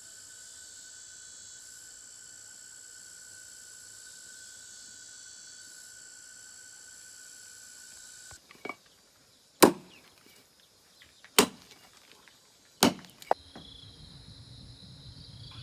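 Insects trill steadily. The sound cuts off abruptly, and three loud, sharp knocks follow about a second and a half apart, with a couple of lighter taps, then a low rumble.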